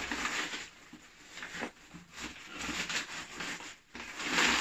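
Crumpled brown kraft packing paper rustling and crinkling as it is handled in a cardboard box, coming and going unevenly and loudest near the end.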